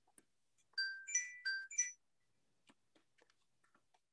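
Electronic alert chime: four short clear notes, two pitches alternating, quick and even, lasting about a second.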